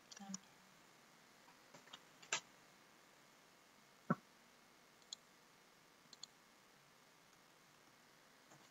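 Near silence broken by a handful of small, scattered clicks, the loudest about two and a half and four seconds in.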